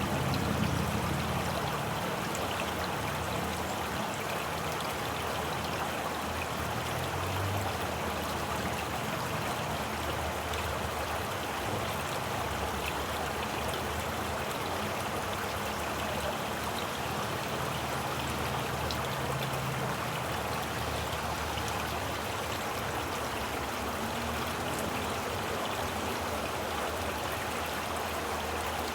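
Running water flowing steadily, a continuous even rush of a stream or small cascade.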